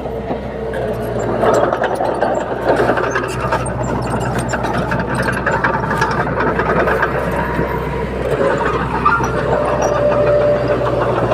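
Komatsu D21P bulldozer's diesel engine running steadily under work, with many sharp clicks and clanks over the engine sound.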